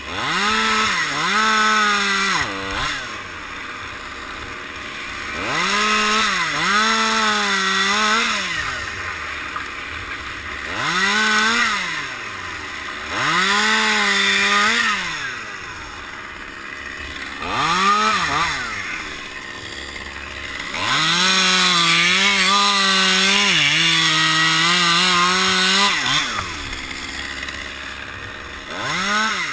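Small top-handle chainsaw revving up to full speed and dropping back to idle about half a dozen times as it cuts through pine limbs. The longest cut runs for about five seconds near the end, its pitch sagging slightly as the chain takes load.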